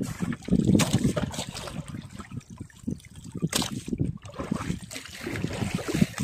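Water sloshing and splashing against the hull of a small fishing boat in uneven surges, with a couple of sharp knocks.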